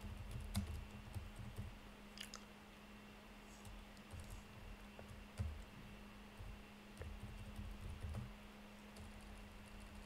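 Faint typing on a computer keyboard: scattered, irregular keystrokes over a low steady hum.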